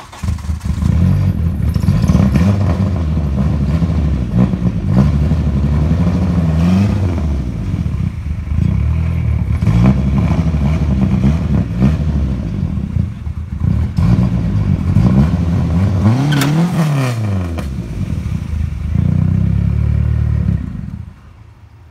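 Mitsubishi Eclipse's turbocharged four-cylinder engine revving hard, the revs climbing and falling again and again on a stationary launch attempt while the tyres spin on the grass. The revs drop off sharply about a second before the end.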